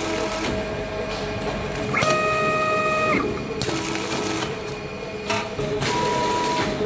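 Automatic powder packing machine running: a continuous mechanical clatter with clicks, and motor whines that start and stop abruptly in spells of about a second at changing pitches.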